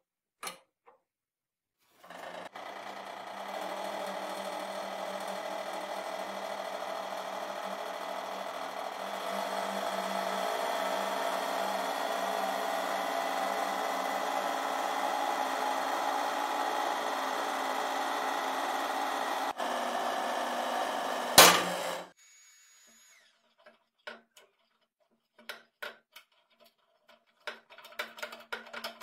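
Hydraulic press pump running steadily for about twenty seconds, louder after the first few seconds as it bears down on a Makita ratchet. Near the end comes one sharp, loud crack as the ratchet's square drive gives way, and the pump stops at once. A few faint ratchet clicks follow.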